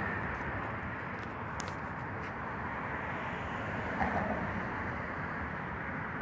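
Steady outdoor city background noise, a low rumble and hiss without a clear single source, with a few faint clicks between one and a half and two and a half seconds in.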